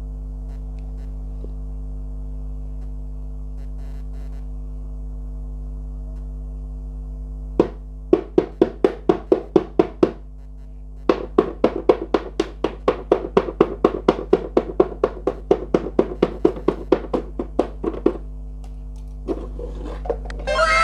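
A spinner wheel ticking rapidly as it turns, about five to six sharp ticks a second, in two runs with a short break between, over a steady low hum. Near the end a falling chime-like sparkle effect begins.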